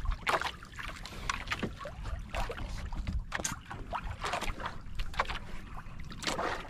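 Irregular light knocks, clicks and rustles from someone moving about and handling things in a small boat on the water.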